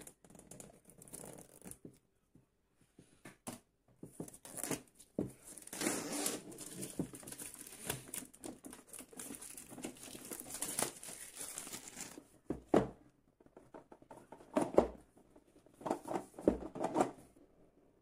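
Clear plastic shrink-wrap being torn and peeled off a cardboard box, a long stretch of crinkling and tearing with scratchy clicks, then three separate louder crinkling rustles near the end.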